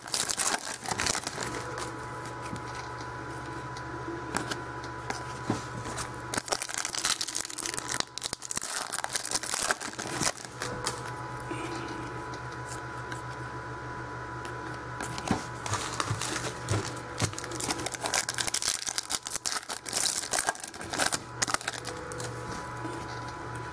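Stack of football trading cards being shuffled and flicked through by hand: a run of short rustles and clicks as the cards slide over each other, with a steady low hum underneath.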